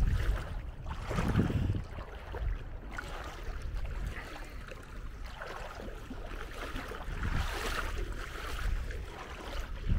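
Wind buffeting the microphone, with the irregular swish and splash of feet wading through shallow, ankle-deep water.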